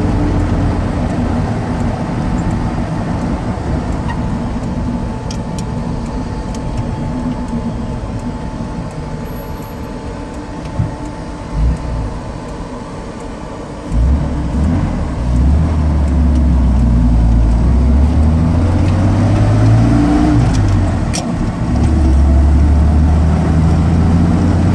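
1955 Fargo truck driving, heard from inside the cab: engine drone mixed with road noise. About halfway through the engine note gets deeper and louder and then rises in pitch as the truck accelerates.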